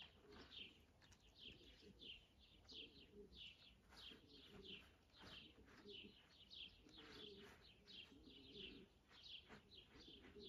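Faint birdsong: a small bird's short high chirps repeated a few times a second without a break, with low cooing of doves underneath.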